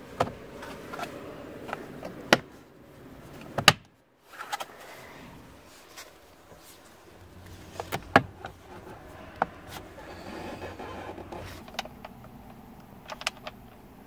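Plastic steering column shroud and dash trim being handled and pressed back into place: scattered sharp clicks and knocks, a few of them loud, over light rustling. The sound cuts out completely for a moment about four seconds in.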